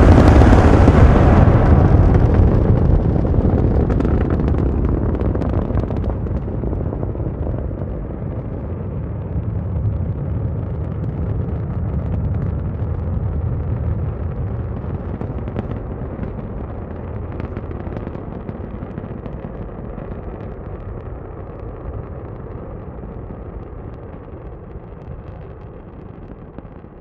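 Saturn V rocket's five F-1 first-stage engines at launch: a deep rumble with crackling, loudest at the start and fading steadily as the rocket climbs away.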